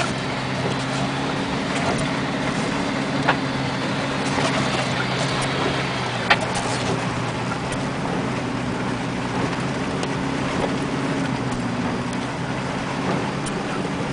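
Car engine running steadily under load as the car drives through a muddy roadside ditch, with a few sharp clicks about three and six seconds in.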